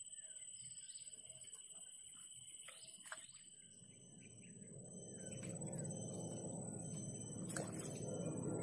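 Birds chirping over a steady high-pitched hum. From about halfway, a low rushing noise swells and becomes the loudest sound.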